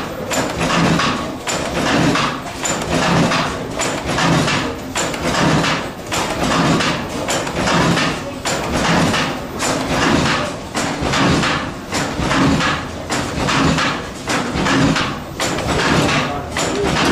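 1903 De La Vergne 125 HP single-cylinder four-cycle oil engine running, a rhythmic clanking and knocking with a heavy beat about once a second.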